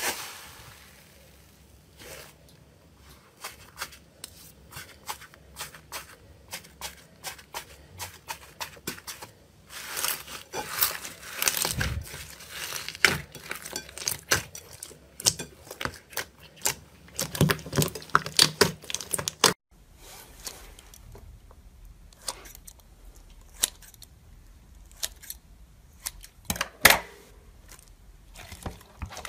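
Slime being squeezed, pressed and stretched by hand in a glass bowl: a run of short sticky pops, clicks and crackles as trapped air bubbles burst, busier in two stretches through the middle.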